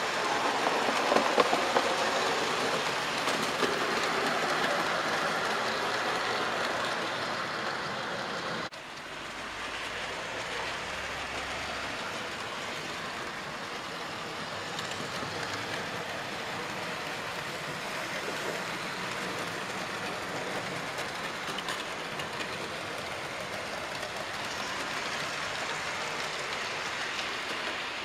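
Model railway locomotives and carriages running on the layout's track: a steady rolling rumble of small wheels on rail, which drops suddenly to a quieter level about nine seconds in.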